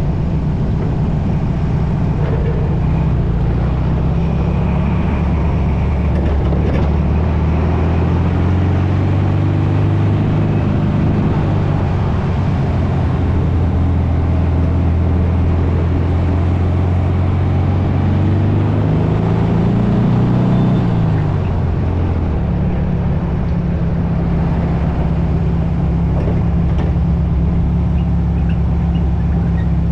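VW dune buggy engine running under way. It holds a steady pitch, revs up about two-thirds of the way through, then drops sharply, as on a gear change or lifting off, and settles back to a steady run.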